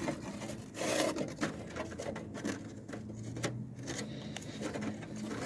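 Handling noises from working on the car: rubbing and scraping with scattered light clicks and knocks, a louder scrape about a second in, over a faint steady hum.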